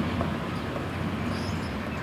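Rumble of a tram on the rails, fading away. Short high chirps start about halfway in.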